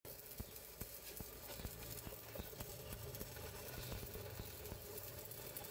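Stick (SMAW) welding arc crackling on steel plate: a steady hiss broken by many irregular sharp pops, with a faint low hum underneath.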